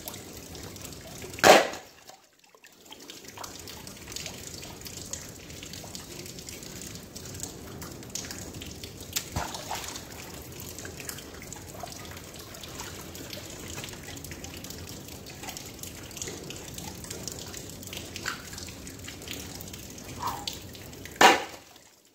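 A heavy fishing magnet on a rope splashing into a shallow river twice, about a second and a half in and again near the end, over the steady trickle of flowing water with small drips and clinks.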